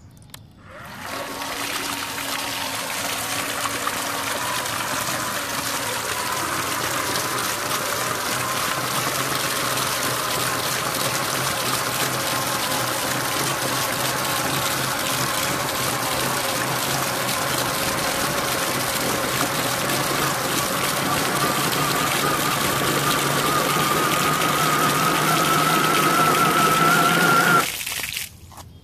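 Electric motor of a 3D-printed RC snow blower, geared through a Traxxas differential, spinning its auger and impeller to pump water out of a tub: a steady motor whine over the rush of water jetting from the chute and splashing onto concrete. It starts about a second in, the whine climbs slowly in pitch over the last several seconds, and the run cuts off suddenly near the end.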